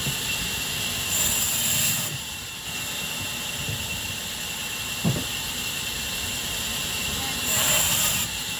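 Large vertical band saw running with a steady high whine. Twice, about a second in and near the end, the blade cuts into a raw log with a brief, louder high hiss. A single knock comes about five seconds in.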